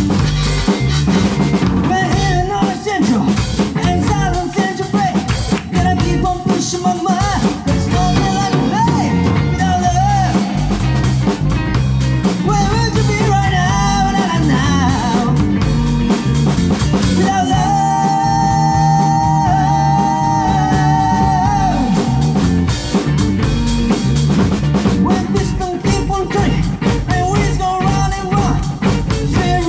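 A rock band playing a funky blues-rock groove on drum kit and guitar, with a wavering lead melody line on top that holds one long note about 18 seconds in.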